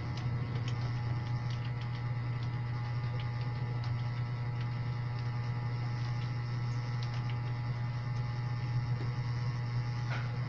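A steady low hum, the loudest thing throughout, with faint, irregular clicks of keys being typed on a computer keyboard.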